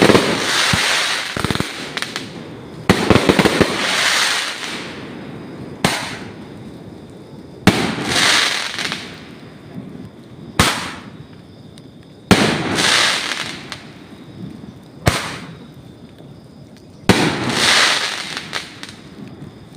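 Aerial fireworks going off: eight sharp bangs two to three seconds apart, each followed by a second or two of crackling.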